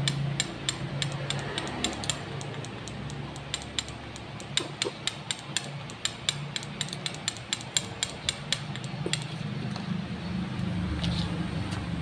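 Spark plug on a CDI test rig snapping as the CDI is fired over and over: a quick, uneven run of sharp ticks, several a second, that stops about nine or ten seconds in. A steady low hum runs underneath.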